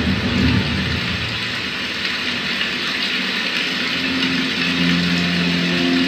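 Demo-soundtrack rain and jungle ambience played through a 2.1 soundbar and subwoofer, a steady hiss with a low rumble in the first second. About four seconds in, sustained music notes come in under it.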